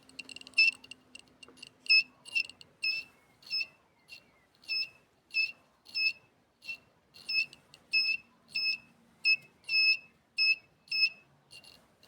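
Electronic beeper of a long-range metal locator giving short, high beeps, about twenty in all: quick and uneven for the first few seconds, then steadier at about one and a half a second.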